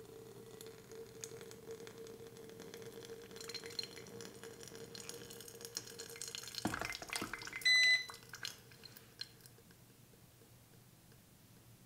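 Hot water pouring from a gooseneck kettle into a paper-lined V60 coffee dripper, the stream tapering off and dripping. The kettle is then set down with a few knocks about seven seconds in, and a short electronic beep follows about a second later.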